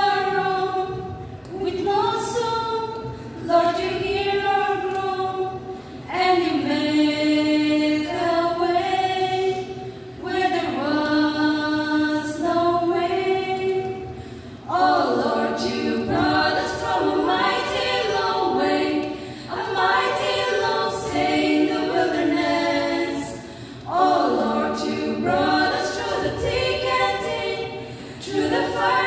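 Four women singing a gospel song a cappella into microphones, with no instruments. It starts as a single melody line and opens into several-part harmony about halfway through.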